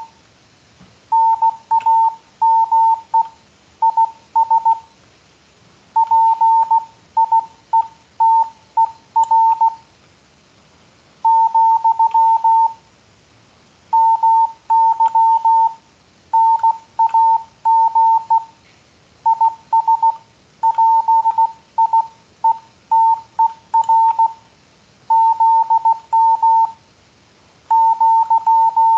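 Morse code sent with a paddle keyer at about 15 words per minute: a single-pitch beep keyed on and off in dots and dashes, with short pauses between words. It spells out the practice reply 'Yes, my name is Peter'.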